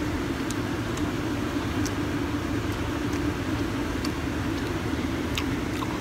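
Steady city background hum with a low drone throughout, and faint, scattered mouth clicks from chewing a burger.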